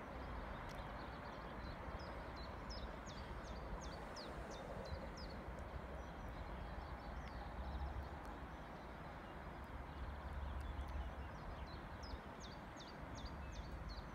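A small bird calling in two runs of quick, short falling notes, about three a second, over steady outdoor background noise with low rumbles.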